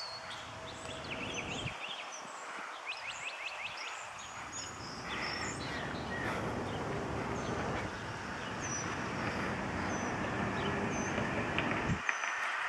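Outdoor street ambience: small birds chirping again and again over a steady wash of traffic noise that grows louder through the second half.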